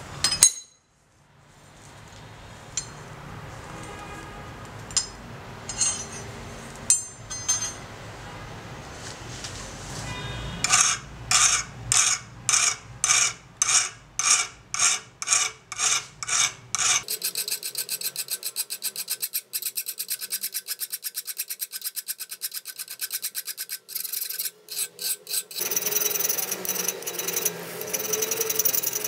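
A hand file scraping along the edge of a steel scissor blade held in a vise. After some scattered clicks, slow even strokes come about two a second from the middle on. They change to quick, short strokes in the second half.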